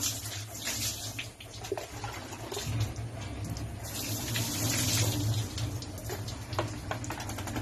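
Water poured from a plastic dipper splashing over a dog's coat and onto the floor, with louder bursts of splashing near the start and again around four seconds in.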